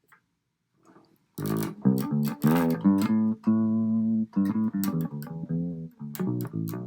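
Guitar played through a Tapco Link USB audio interface: a run of picked notes starting about a second and a half in, with one note held steady in the middle, and the last notes ringing out near the end.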